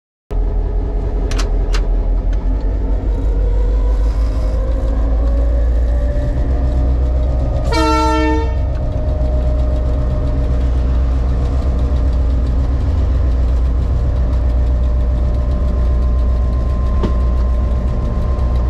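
EMD G16 locomotive's 16-cylinder two-stroke diesel engine running, heard from inside the cab, its note rising slowly over the first several seconds. About eight seconds in, a short horn blast of about a second sounds over it, and a couple of sharp clicks come near the start.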